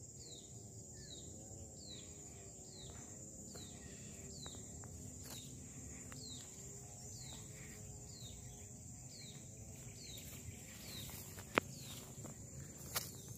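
Outdoor hillside ambience: a bird repeats a short, falling call about every second, over a steady high-pitched insect drone. A few soft clicks, likely footsteps in grass, with a sharper click about 11 seconds in.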